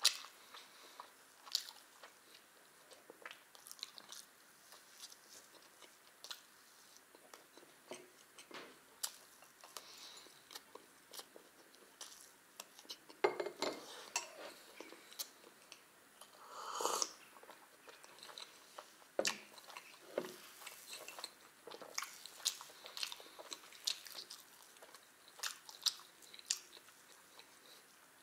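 Close-miked chewing and biting of thin pancakes: many small wet mouth clicks and smacks scattered throughout, with a few louder ones around the middle.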